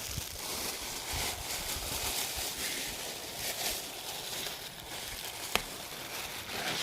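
Irregular rustling and crinkling from material being handled, with one sharp click about five and a half seconds in.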